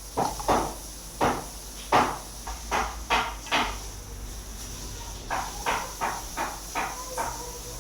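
A blade chopping in a run of sharp strikes, about two a second and unevenly spaced, heavier in the first half and lighter, quicker after a pause in the middle.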